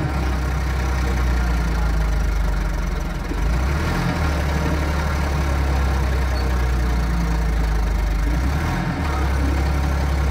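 Farm tractor's diesel engine running steadily under heavy load as it tows a laden trailer through soft mud, with its low note dipping briefly twice, about a third of the way in and near the end.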